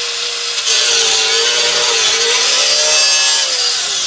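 Electric power tool cutting sheet steel out of a car's rusted floor pan. The motor whine holds steady, then sags and recovers in pitch over a harsh, hissing cutting noise that gets louder about a second in.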